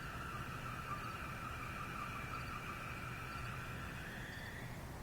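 A long, eerie droning tone with two pitched layers that holds steady, then glides upward in pitch and fades out near the end: one of the unexplained 'strange sounds in the sky' heard at night, whose source the people recording it could not pin down.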